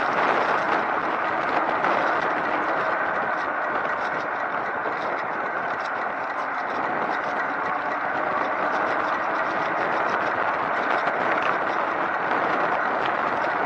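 A recumbent cycle in motion, giving a steady whir of tyres and drivetrain.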